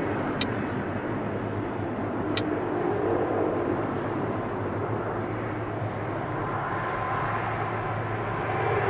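Jet airliner's engines running as the plane moves along the runway: a steady rush of jet noise, with a whine becoming clearer about six seconds in.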